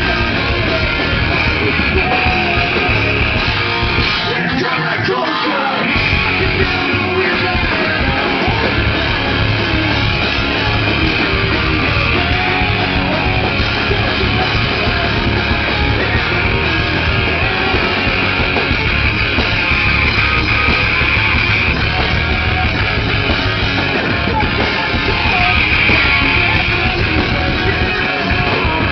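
Live rock band playing loud, with electric guitar, drums and a singer shouting into the microphone. The bass and drums drop out for about two seconds a few seconds in, then the full band comes back.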